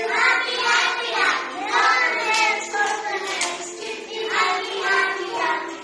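Group of young children singing a song together, with a few hand claps.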